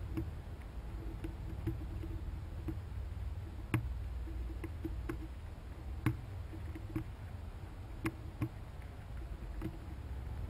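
Scattered sharp clicks and ticks, with a few louder cracks, from chipmunks gnawing and shucking dried corn kernels, over a steady low rumble.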